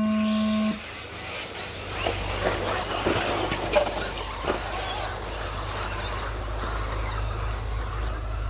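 An electronic start tone sounds for under a second, then a pack of radio-controlled stadium trucks races away on the dirt track, with a few sharp knocks between about two and four and a half seconds in.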